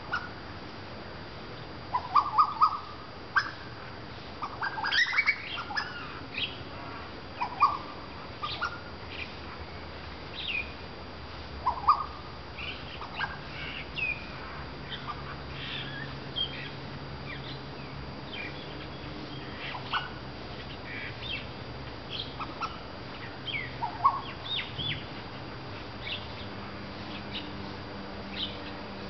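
A bird singing very loudly in a varied run of short chirps and whistled notes, some sliding in pitch, coming irregularly with brief gaps, the most in a burst about five seconds in.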